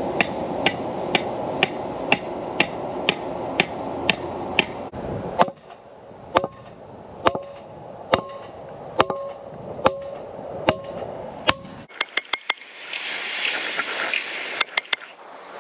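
Hammer blows on a galvanized steel pipe driving a metal no-dig fence post anchor into the ground: steady blows about two a second, then after about five seconds slower blows about one a second, each with a short metallic ring. The blows stop about three-quarters of the way through after a few quick lighter taps.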